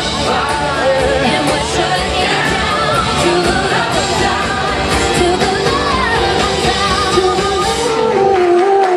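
Live pop-rock band playing with lead and backing vocals through a loud sound system. Near the end the drums and bass drop away, leaving a held sung note as the song closes.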